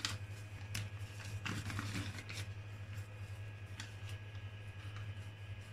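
A few soft clicks and rustles, mostly in the first half, as hands work under a 3D printer's bed adjusting the levelling knob with a slip of paper, over the steady hum of the powered-on printer.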